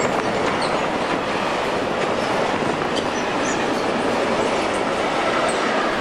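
Freight train passing on the track: steady noise of wheels running on rails.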